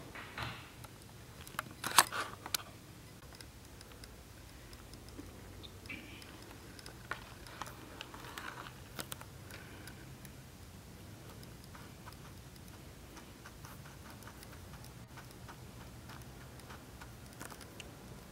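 Faint handling sounds of hand-sewing beadwork: scattered small clicks and ticks of needle, thread and beads, with a sharper click about two seconds in.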